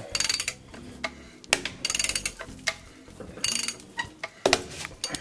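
Ratchet wrench clicking in short bursts of strokes as it cranks down a chain-type soil pipe cutter, tightening the chain so its cutter wheels bite into a cast iron drain pipe.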